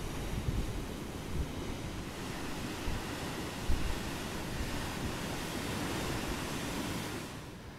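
Ocean surf breaking and washing below the cliffs, a steady rush, with gusts of wind buffeting the microphone in low thumps. The rush drops away sharply near the end.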